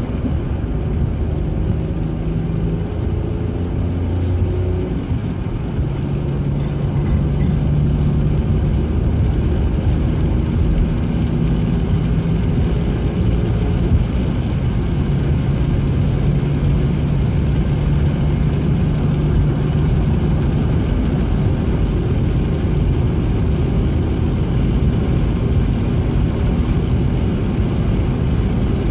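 Steady in-cabin noise of a car cruising at motorway speed: the engine's low hum mixed with tyre and road noise.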